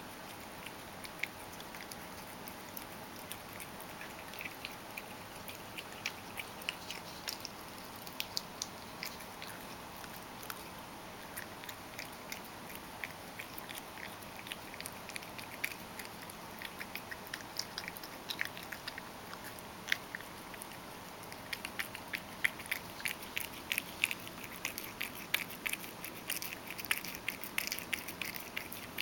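Ragdoll cat eating crushed dry food softened with hot water from a stainless steel bowl: rapid small wet clicks of chewing over a faint hiss, coming thicker and louder for the last third or so.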